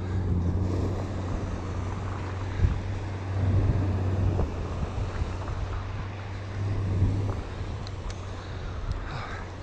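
Wind rumbling on the microphone, swelling and easing, over the wash of surf on the beach, with a few light clicks.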